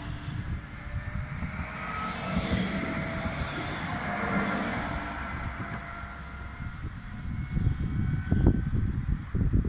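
Pesa Swing articulated low-floor tram passing close: wheels rumbling on the rails with steady whines from its electric drive, swelling as it goes by and fading as it pulls away. Low thuds near the end.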